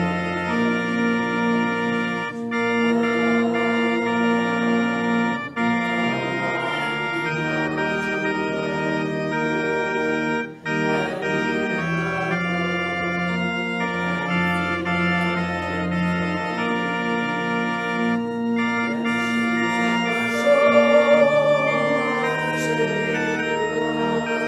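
Organ playing slow, sustained chords that change every second or two, with two short breaks between chords about five and ten seconds in.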